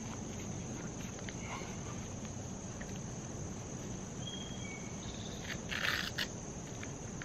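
A steady, high-pitched chorus of insects runs underneath. About six seconds in, a short rasp sounds as the strap of a dog boot is fastened on a puppy's paw.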